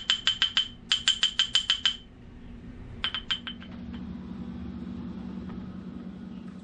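A small spice bottle shaken over a small cup, clinking in quick runs of about six clinks a second, three runs over the first three and a half seconds. A low steady hum follows.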